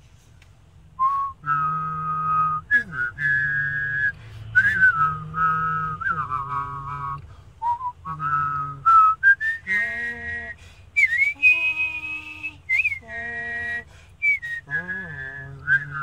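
A person whistling a melody of Japanese train on-board chimes, with the voice humming a low note along with the whistle. The melody starts about a second in and moves in short held notes with quick slides between them.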